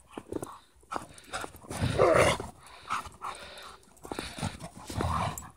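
Two dogs play-chasing through snow: short bursts of dog vocalizing about once a second, loudest about two seconds in, with quick footfalls of running paws.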